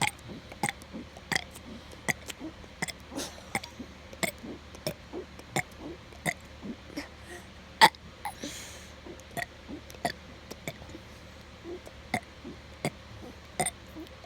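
A young child's forced burps, short and sharp, coming in quick succession about two or three a second; one about eight seconds in is the loudest.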